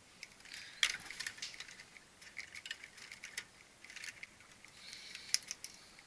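Wire crimping pliers worked on electrical wires: a scatter of small metal clicks, ticks and rustles, with two sharper snaps, about a second in and near the end.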